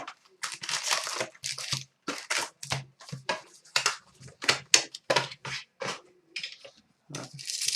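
Hockey card pack wrappers being torn open and crinkled by hand: a rapid, irregular run of short tearing, crinkling rustles, about three a second.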